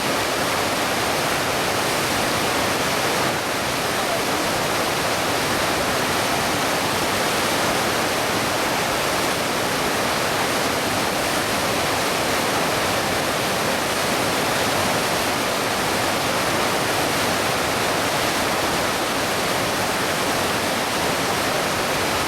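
Whitewater of the St. Lawrence River's Lachine Rapids rushing in a steady, loud, unbroken wash.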